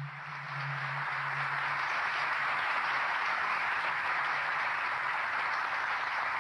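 Audience applause that starts abruptly and holds at a steady level.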